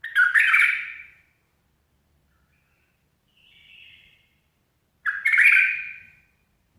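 A bulbul calling: two loud, harsh calls about five seconds apart, with a softer warbling call between them.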